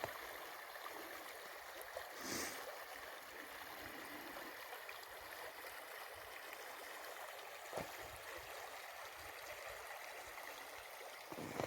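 Small taiga river rushing steadily over a shallow ford, an even rush of water, with a faint knock about two seconds in and another near eight seconds.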